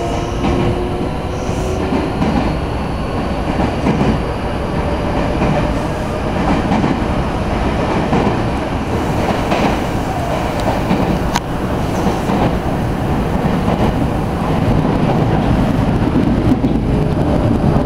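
Running noise inside a Meitetsu Komaki Line electric commuter train car: a steady rumble of wheels on the rails, growing a little louder over the last few seconds.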